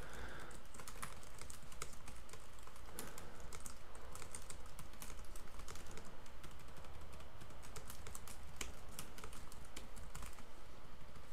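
Typing on a computer keyboard: a steady run of quick key clicks with brief pauses, thinning out near the end.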